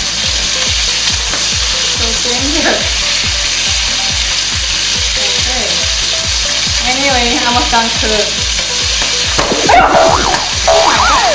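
Squid pieces deep-frying in hot oil in a wok: a loud, steady sizzle as they are stirred with a skimmer. A brief high squeal cuts in shortly before the end.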